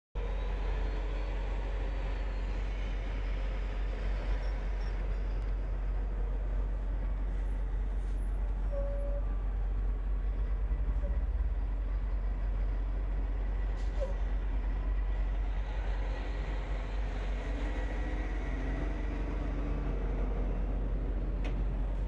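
Military 8x8 heavy-haul trucks loaded with bulldozers on low-bed trailers driving past on a paved road: a steady diesel engine and tyre noise with a deep, constant low rumble.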